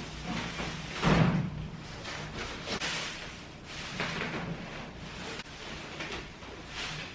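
Thuds and knocks of flat-pack kitchen cabinet parts being handled during assembly, the heaviest thud about a second in.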